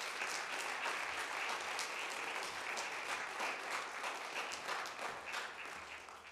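Congregation applauding, a dense spread of hand claps that fades away near the end.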